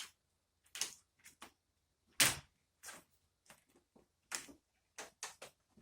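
Irregular light clicks and knocks of a laptop's plastic case being handled and set down, about ten in all, the loudest about two seconds in.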